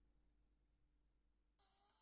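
Near silence with a faint low hum. About one and a half seconds in, a faint sound with a slowly rising tone begins.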